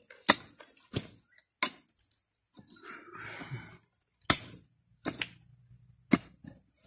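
Small orange-handled hand pick chopping into packed soil: about half a dozen sharp strikes with metallic clinks, irregularly spaced with a pause in the middle.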